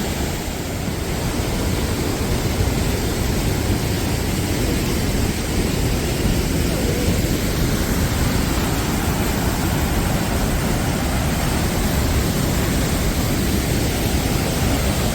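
A waterfall rushing steadily as a heavy flow of water comes down.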